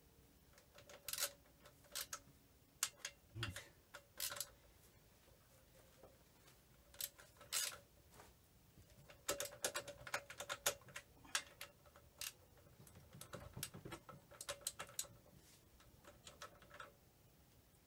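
Metal clicks and light taps from a hand wrench tightening the cylinder head nuts on a Ural motorcycle's boxer engine, in irregular bunches, with a faint steady hum underneath.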